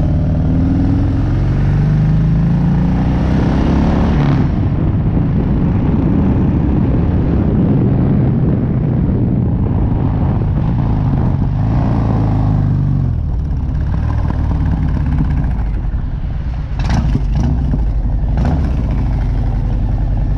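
Harley-Davidson V-twin engine accelerating on the road, its pitch rising over the first few seconds, with wind rushing over the microphone at speed. A few sharp clicks come near the end.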